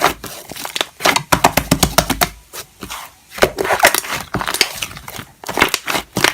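Slime being squished and poked by hand, making a dense, irregular run of sticky clicks and small pops.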